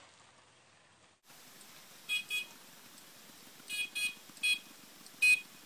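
A series of short high-pitched beeps, mostly in pairs, over a steady hiss.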